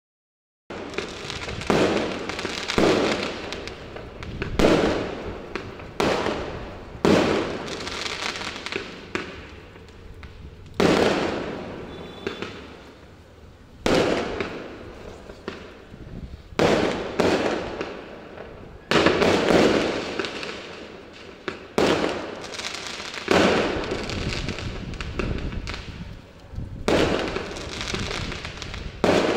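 Fireworks exploding one after another, a loud bang every second or two, each fading away over a second or so.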